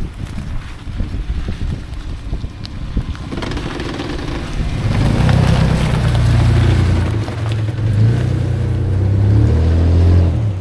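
Wind buffeting the microphone, then a Toyota 4Runner's engine comes in about three seconds in and grows loud, its pitch rising and falling as it works along a rough dirt road. The engine sound cuts off abruptly at the end.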